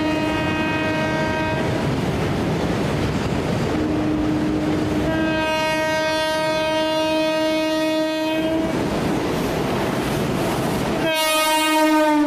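Indian Railways WAP-4 electric locomotive sounding its horn as it passes hauling a freight train. There is a blast of about two seconds, then a long blast of about five seconds, then another beginning near the end, all over the steady rumble and rush of the passing train.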